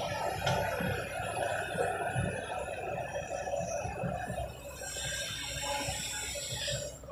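Sumitomo SH350 excavator's diesel engine and hydraulics working as the loaded bucket swings over a dump truck. About five seconds in there is a rushing hiss as the bucketful of earth is dumped into the truck bed.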